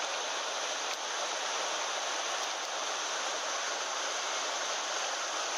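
Mountain stream water rushing over rocks, a steady even roar.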